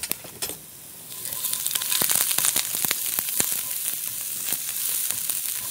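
Sliced onions sizzling in hot oil in a frying pan while being stirred with a silicone spatula. The sizzle gets much louder about a second in and carries on as a dense hiss with many small crackles.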